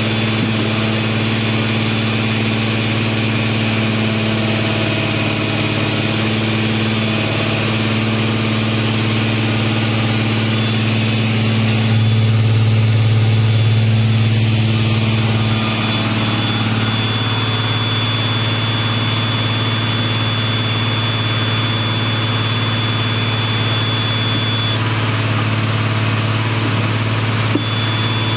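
Underground mining drill rig's engine running at a steady idle, getting louder for about three seconds near the middle, with a thin high whine coming and going in the second half.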